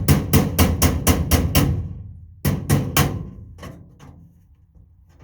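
Rapid hammer blows on a tool box, about four a second, knocking it back into shape. After a short break come three more blows and a few lighter taps that die away.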